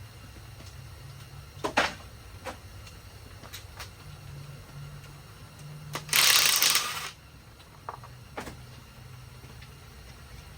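Hand tools working on engine parts: scattered metal clinks and knocks, and about six seconds in a loud second-long burst of rapid ratcheting as a fastener is run off.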